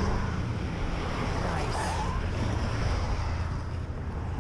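Wind rushing over a chest-mounted camera's microphone on a moving bicycle, over a steady low rumble of road and traffic noise.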